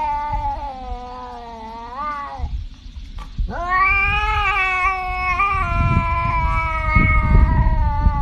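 A cat yowling in two long drawn-out calls. The first ends with a rise in pitch about two seconds in. After a short break with a click, the second goes on for about five seconds. A low rumbling noise runs underneath and grows louder near the end.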